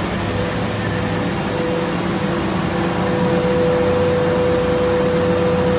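Bar polishing and grinding machine running steadily: a continuous whirring noise with a steady mid-pitched tone and a low hum, getting slightly louder about three seconds in.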